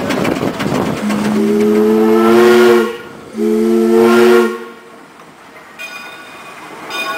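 Steam road locomotive's whistle blown twice, a long blast and then a shorter one, each a chord of several notes. Before the first blast the engine's rhythmic running noise is heard.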